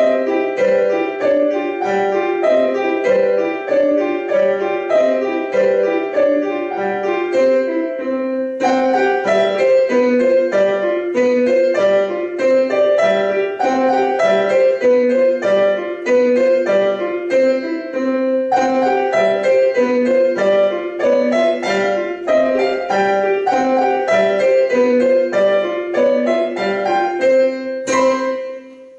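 Piano duet playing a children's piece, a continuous run of short notes with brief breaks about eight and eighteen seconds in. It ends on a final chord that dies away near the end.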